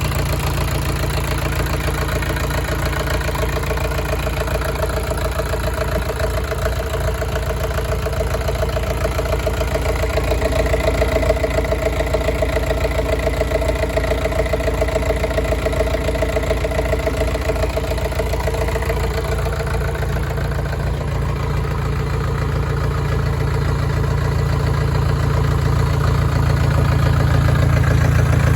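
Yangdong YD480 four-cylinder diesel engine of a brand-new 14 kVA generator set, idling steadily with a fast, even beat and a deep hum.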